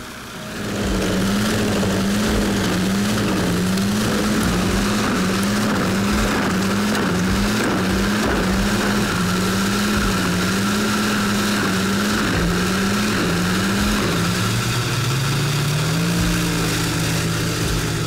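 Wood chipper working, driven by a tractor engine: a loud, steady mechanical din with an engine note that wavers up and down about once a second and drops lower near the end.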